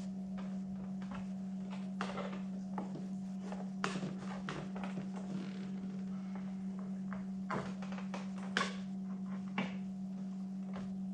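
Scattered small clicks and knocks of screwdrivers prying at a car's plastic door trim panel to release the door speaker cover, over a steady low hum.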